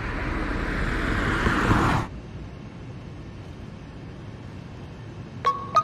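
A car driving past on a city road, its tyre and engine noise growing louder until it cuts off suddenly about two seconds in. A quieter steady hum follows, like a car's interior while driving, and a few chime-like music notes come in near the end.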